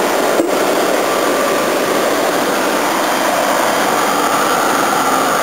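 Repaired Toshiba air conditioner running on high fan: a steady rush of air from its blower, with a brief click about half a second in.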